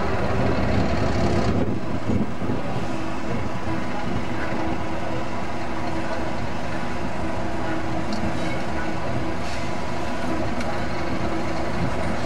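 English Electric Class 37 diesel locomotive's V12 engine running as the locomotive rolls slowly forward. The engine note drops about a second and a half in, as the power is eased off, and then holds steady.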